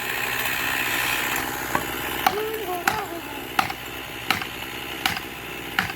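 Felling wedges being driven into the cut of a pine with a hammer: sharp strikes about every 0.7 seconds, beginning a little over a second in, to push the tree over in the chosen direction.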